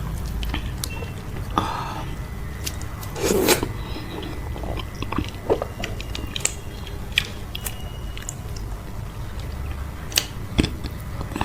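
Close-miked chewing and biting of okra soup with fufu and cow foot: scattered wet mouth clicks and smacks, with one louder wet burst about three seconds in, over a low steady hum.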